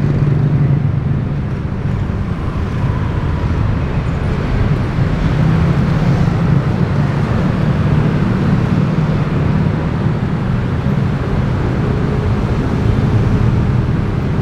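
City street traffic noise, mostly motor scooters passing close by, with a steady low engine and tyre rumble.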